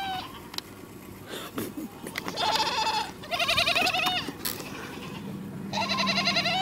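Goats bleating three times, high-pitched, the second bleat wavering in pitch.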